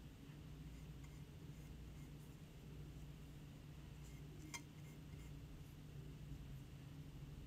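Near silence over a steady low room hum, with faint scratching of a small paintbrush dabbing glaze onto unglazed bisque ceramic, and one sharp click about halfway through.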